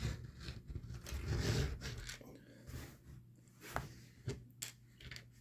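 Small parts being handled on a work surface: faint rustling and scraping, then a few sharp light clicks near the end.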